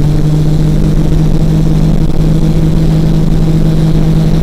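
Ultralight trike's engine and pusher propeller running at full takeoff power: a loud, even drone that holds one steady pitch.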